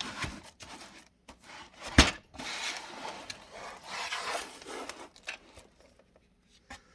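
Cardboard model-kit box being handled and turned over: rubbing and scraping against hands, with one sharp knock about two seconds in.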